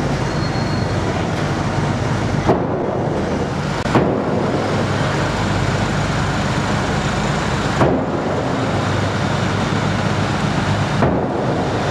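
Steady low drone of engines and machinery echoing in a car ferry's enclosed vehicle deck, broken by a few short sharp knocks.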